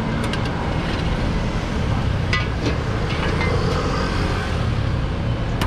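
Gas wok burner running with a steady rushing noise under the wok. A metal ladle clinks against the wok a few times, near the start and about halfway through.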